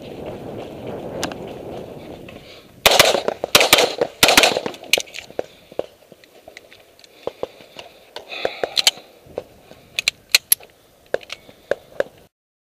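Open-division competition pistol firing: a rapid string of about six loud shots about three seconds in, followed by scattered, quieter sharp reports and clicks, with the sound cutting off abruptly near the end.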